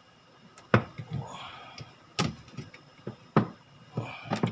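Sharp knocks and clicks, four of them about a second apart, as a worn-loose drive belt is worked off a washing machine's motor and pulsator pulleys.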